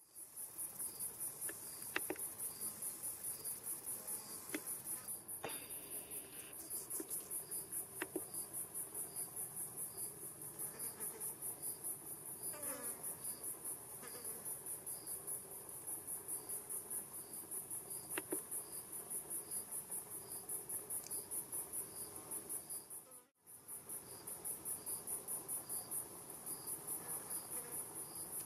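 Wild insects, such as crickets, singing in a steady high-pitched chorus made of rapid pulses, with a second, lower chirp repeating about twice a second. The sound breaks off for a moment about 23 seconds in.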